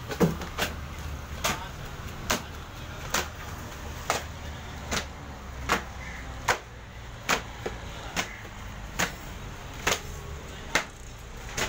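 Sharp knocks struck at a very even pace, a little over one a second, over a steady low hum.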